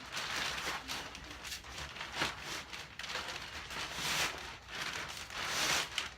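Plastic wrapping crinkling and rustling as it is pulled off a cargo carrier, in uneven bursts.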